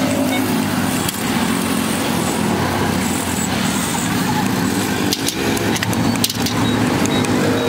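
An engine running steadily with an even hum, with a few sharp metallic clicks from hand tools and drum brake parts handled about five and six seconds in.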